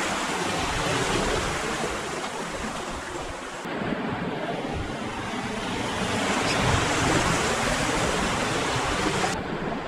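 Rushing water of shallow river rapids around an inflatable kayak, a steady noisy rush. The hiss changes abruptly a little under four seconds in and again near the end.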